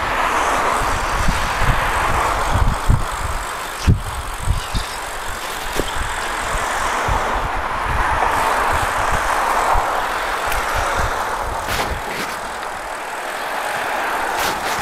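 Riding noise from a road bike: wind buffeting the handlebar camera's microphone over a steady rush of tyres on asphalt that swells and fades. A single knock about four seconds in.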